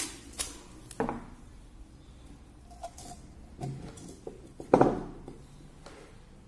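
A few short knocks and clicks of a drinking glass and a roll of masking tape being handled on a tabletop while thread is taped to the glass. The loudest knock comes just before five seconds in.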